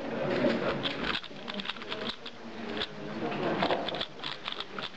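3x3x3 speed cube being turned quickly by hand, a dense, irregular clatter of plastic clicks from the layer turns, with voices murmuring in the background.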